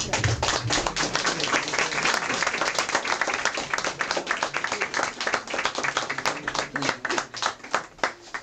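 A small group of people applauding, with dense hand-clapping that thins out near the end.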